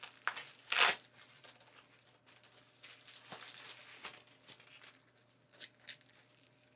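Rustling and crinkling as leather-and-mesh motorcycle gloves are handled and pulled on, with one short, louder rasp about a second in, then faint scattered rustles and small clicks.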